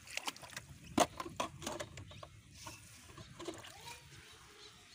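Catfish flapping and wriggling in a little water in a metal bowl: a quick run of wet slaps and knocks against the bowl in the first two seconds, the loudest about a second in, then only a few more.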